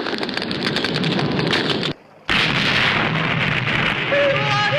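Cartoon sound effect of a lit fuse: a sizzling, crackling hiss that cuts off about two seconds in, followed by a steady rushing noise with a few whistle-like notes coming in near the end.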